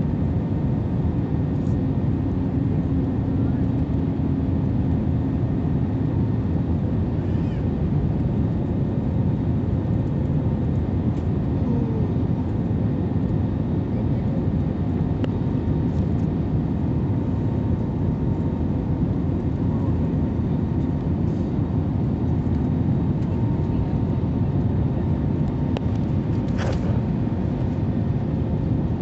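Steady roar of jet engines and rushing air heard inside an Airbus A321neo cabin on approach, from its CFM LEAP-1A turbofans, with a steady low hum running through it.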